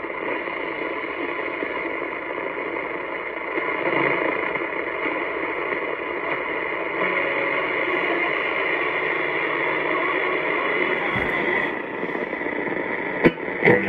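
Static and hiss from a 1938 Philco Model 38-12 vacuum-tube AM radio's speaker as its dial is tuned across the band between stations. A couple of sharp crackles come near the end as a station starts to come in.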